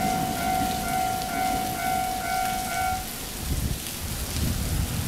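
Railway level-crossing warning bell ringing in a steady repeated tone, about two strokes a second, then cutting off about three seconds in as the warning ends. A low rumbling noise follows.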